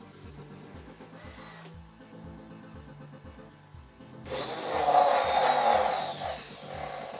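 The InMoov robot's hobby servo motors whine for about two seconds as its arms swing up, starting about four seconds in. A faint background music track with a steady low beat runs throughout.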